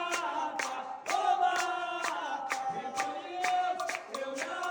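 A group of voices singing a ponto cantado together in long held notes, over a steady beat of hand percussion at about three strokes a second.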